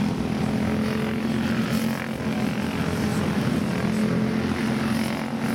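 A field of racing karts with single-cylinder four-stroke Briggs & Stratton Animal engines running on the track, a steady, dense buzzing drone of many small engines at once.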